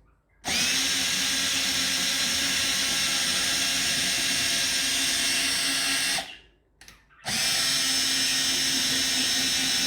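Power drill running at a steady speed, driving the CNC machine's axis to test that the carriage runs smoothly along its new rails. It runs in two stretches, stopping about six seconds in and starting again a second later.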